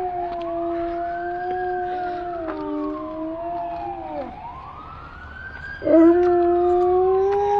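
A dog howling, long notes held on one pitch that each end in a falling drop, twice, the second starting suddenly about six seconds in, over a siren wailing up and down.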